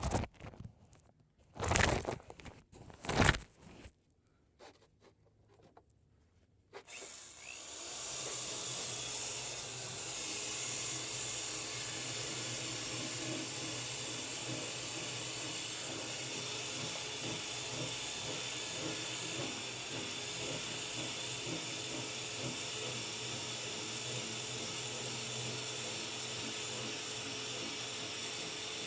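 A few knocks, then about seven seconds in a power tool fitted with a wire wheel starts and runs steadily with a hum and hiss, grinding Bondo body filler down on a car body panel.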